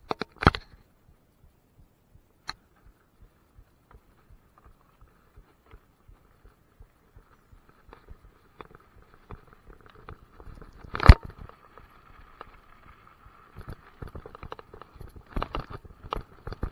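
Mountain bike riding over a gravel forest trail, heard through a handlebar-mounted camera: scattered knocks and clicks, one sharp, loud knock about eleven seconds in, then denser rattling and thuds over rough ground near the end.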